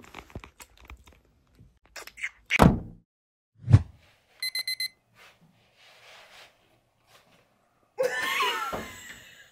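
Two short downward swoops, each ending in a low thump, then four quick electronic alarm-clock beeps about halfway through. Near the end comes a louder jumble of wavering pitched sound.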